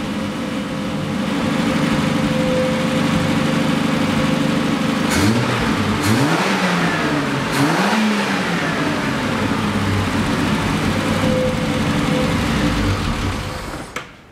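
Triumph TR6's 2.5-litre straight-six engine running steadily, its speed rising and falling several times around the middle with a few sharp clicks, while the ignition timing is being set for the highest vacuum on a vacuum gauge. The engine note fades at the very end.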